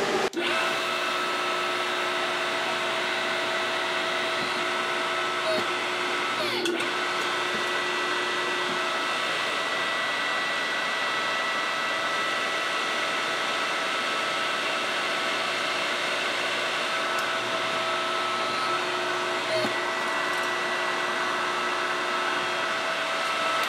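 Electric pump of a hydraulic press running steadily, a constant mechanical hum with several steady tones, as the ram drives a urethane pad to press fine silver sheet into an impression die.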